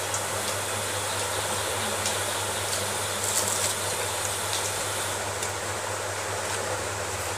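A steady low hum and hiss, with faint, scattered soft clicks of a hand mixing rice and dal on a metal plate.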